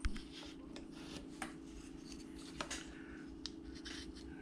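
Carving knife shaving small cuts off a wooden carving's stock to remove bandsaw marks: a string of faint scrapes and sharp little clicks at irregular intervals.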